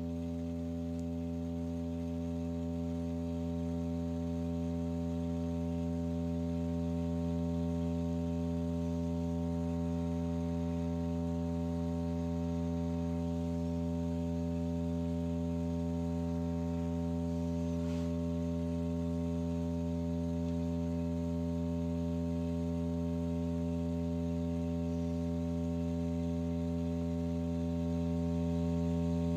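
Steady low droning tone with a stack of overtones, holding one pitch throughout: the drive tone of a cymatics setup, vibrating the surface into a ring pattern.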